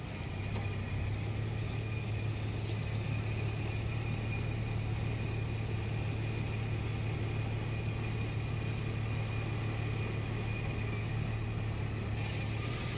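Car engine idling with a steady low hum, a little louder from about half a second in, with a faint steady high whine above it.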